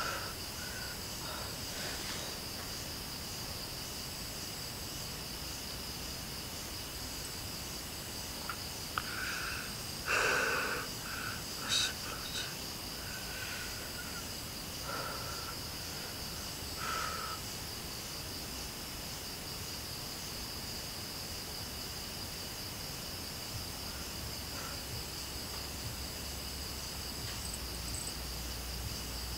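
Crickets and other night insects chirring steadily in a high, continuous trill. A few brief, separate sounds stand out over it about a third and halfway in, the loudest a little past ten seconds.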